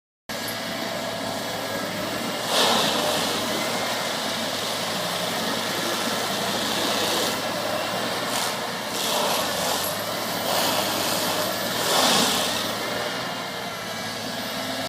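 Excavator-mounted forestry mulcher with a 375 hp power pack running steadily, with several louder bursts of grinding as the toothed drum bites into a stump.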